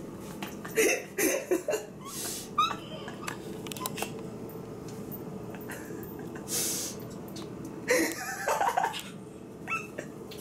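A young woman's stifled laughter and breathing in short bursts, muffled by the hand she holds over her mouth after scalding it with splashed boiling water.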